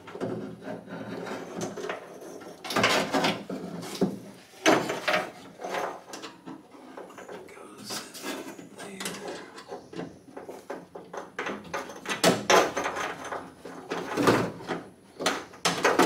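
Irregular knocks, clunks and scrapes of hardware being handled and fitted inside a car door as a power door lock actuator and its lock rod are installed, with several louder clunks among the rattling.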